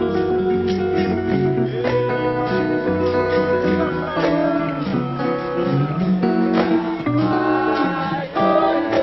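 Blues music with plucked and strummed acoustic guitar.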